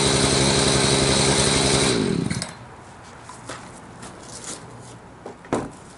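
Echo CS-590 Timberwolf two-stroke chainsaw running steadily, then shut off about two seconds in, its engine winding down and stopping. Afterwards a few light knocks and one louder thump near the end.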